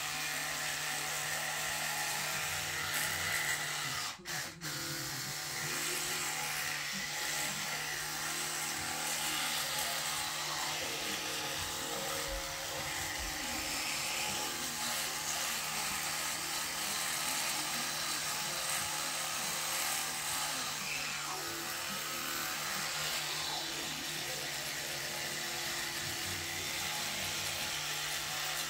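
Electric toothbrush running steadily with a low hum while brushing teeth, with two very short drops about four seconds in.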